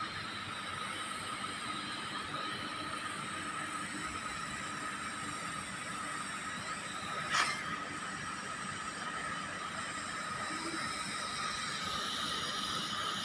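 TIG (argon) welding on thin stainless steel pipe: a steady hiss from the arc and argon gas with a faint steady whine, a short crackle about seven seconds in, and the hiss growing a little brighter near the end.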